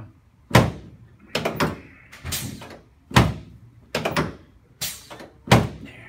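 Chiropractic drop table thudding in a quick series of heavy knocks, roughly one or two a second, as hands thrust down on a patient's lower back.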